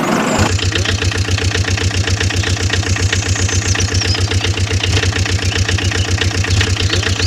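An engine idling with an even, rapid chugging, about ten beats a second. Birds chirp faintly over it.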